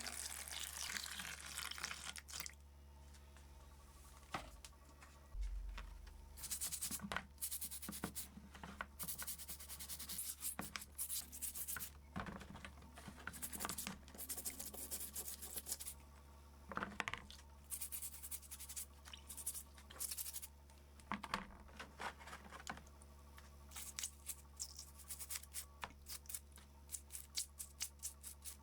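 Rusty metal being scraped and rubbed by hand in short irregular strokes, with an occasional sharp click of metal.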